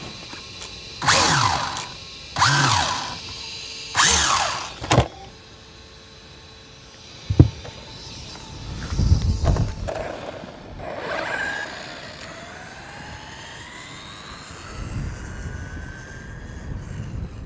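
A small brushless RC car motor is throttled up three times, each a short whine falling in pitch as the wheels spin down. After a thump, the motor's whine rises steadily in pitch as the car accelerates away.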